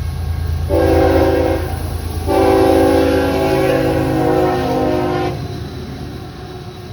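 Diesel freight locomotive's air horn sounding a multi-note chord, a short blast about a second in and then a long blast of about three seconds, over the steady low rumble of the locomotive engines, which fades after the long blast ends.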